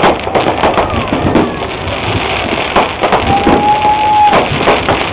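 Aerial fireworks going off overhead: a dense run of sharp bangs and crackles from bursting shells and crackling stars. About three seconds in, a single steady high note holds for about a second over them.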